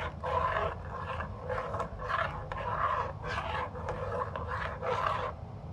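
A spoon scraping around a steel saucepan as a milk mixture is stirred, in rhythmic strokes about twice a second that stop near the end.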